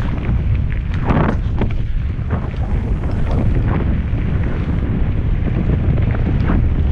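Wind buffeting a helmet-mounted camera's microphone as a mountain bike rolls fast down a dirt trail: a loud, steady low rumble with scattered clicks and rattles from the bike over the bumps, a cluster of them about a second in.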